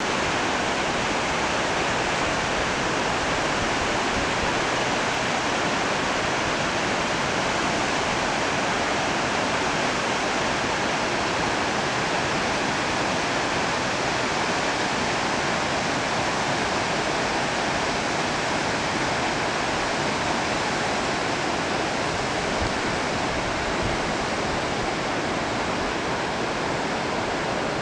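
Mountain stream rushing over rocks, a steady, unbroken rush of water.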